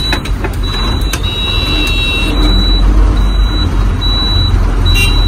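A truck's diesel engine running under way, heard from inside the cab. Over it, a high electronic beep repeats a little faster than once a second.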